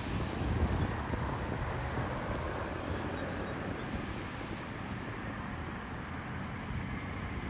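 Steady outdoor background noise: a low rumble of wind on the microphone mixed with distant traffic.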